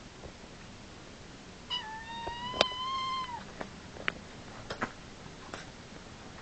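A cat gives one long, high-pitched meow that dips at the end, with several sharp taps and knocks around it during a play fight.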